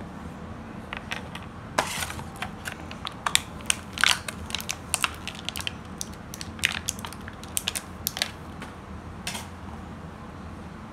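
Thin plastic packaging crinkling and crackling in the hands, a run of irregular sharp crackles that thins out near the end.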